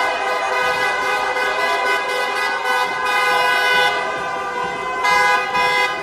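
Many car horns honking together in celebration, several held long at once, with extra short blasts around the middle and near the end, over a cheering street crowd.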